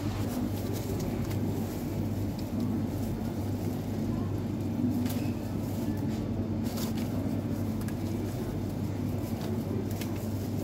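Steady low machine hum, with a few faint clicks.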